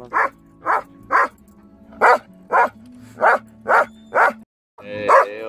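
Belgian Malinois giving a run of short, evenly spaced barks, about eight in four seconds, as it 'sings'. After a brief break near the end, a longer wavering vocalisation starts.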